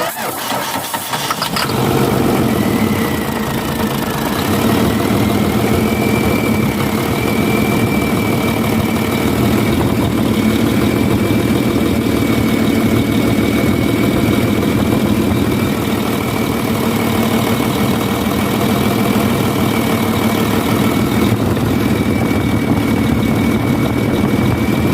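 UD truck's MD92 diesel engine cranking and catching about two seconds in, then running steadily at idle with its turbocharger's high whistle, which rises a little over the next few seconds and then holds steady.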